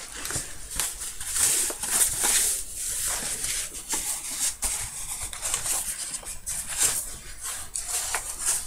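A rolled diamond-painting canvas being unrolled and handled: its paper and plastic sheet rustles and crackles irregularly.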